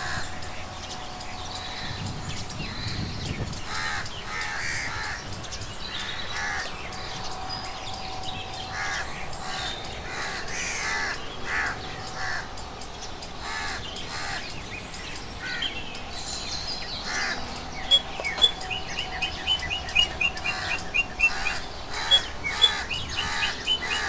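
Crows cawing again and again, with other birds calling. Near the end, fast runs of short high chirps set in, louder than the caws.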